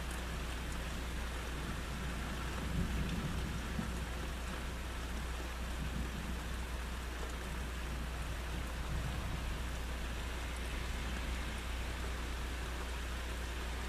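Steady rain falling on foliage, with a low thunder rumble that swells about three seconds in and again briefly a few seconds later.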